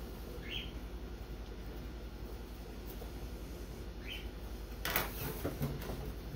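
A steady low hum with two short rising chirps, then crackling and rustling of thin plastic laminating film as the covered wing is handled near the end.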